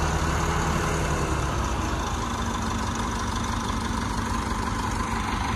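Massey Ferguson tractor's diesel engine idling steadily, its low note shifting about a second and a half in.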